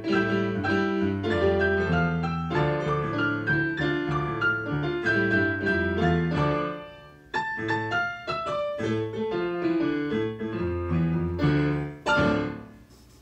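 Three digital pianos played together as an ensemble, with brisk notes over a steady bass. The playing drops away briefly about seven seconds in, picks up again, and closes on a final chord that dies away near the end.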